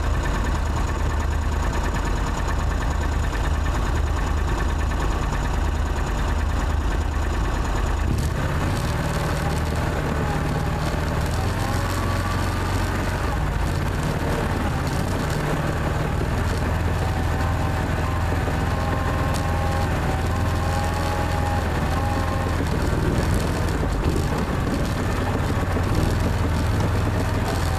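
Argo amphibious ATV engine running steadily as the vehicle drives over shore ice. About eight seconds in the sound shifts and a wavering whine joins it.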